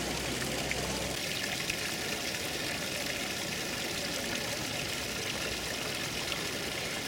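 Water from the spouts of the Fontana del Pantheon, a stone fountain, pouring and trickling steadily into its basin.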